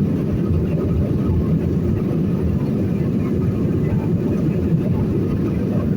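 Steady low rumble of an airliner's engines and airflow, heard from inside the passenger cabin.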